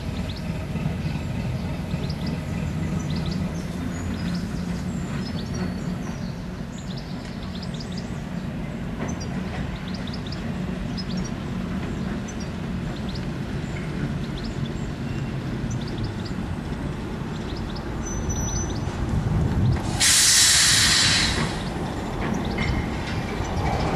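Diesel shunting locomotive running at low speed, its engine giving a steady low drone, with small clanks and ticks from the wheels. About twenty seconds in, a loud hiss lasts about a second and a half.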